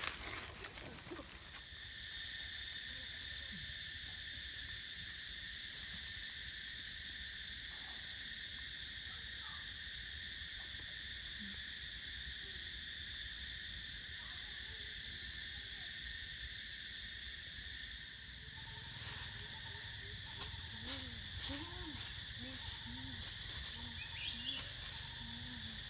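Steady insect drone in the forest, a continuous high buzz on two even pitches. In the last several seconds, dry leaf litter and branches crackle and rustle as someone moves and climbs through them.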